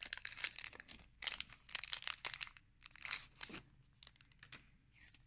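Foil Pokémon booster pack wrapper crinkling and tearing as it is opened and the cards are slid out. The crackling is dense for about the first three and a half seconds, then thins out to a few soft rustles.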